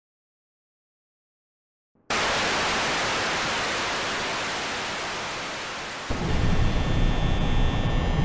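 Silence for about two seconds, then analogue TV static hiss cutting in suddenly and slowly fading. About six seconds in it gives way to a steady low rumble with a faint hum.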